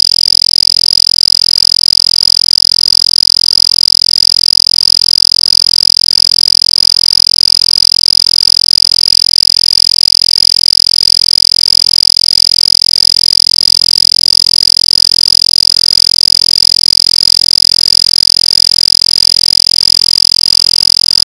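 A loud, steady, high-pitched electronic tone with fainter higher overtones, unchanging in pitch and level.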